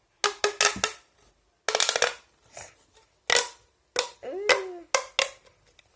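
Pop Tube, a corrugated plastic fidget tube, being pulled and pushed so its ridges snap open and shut in sharp pops, in quick groups of several pops with short pauses between.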